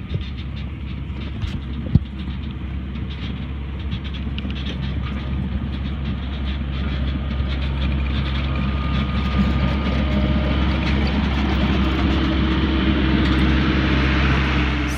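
Diesel engine of a John Deere CT322 compact track loader running steadily under load while it drives with its tracks rattling. It grows louder as the machine approaches, with a single sharp knock about two seconds in.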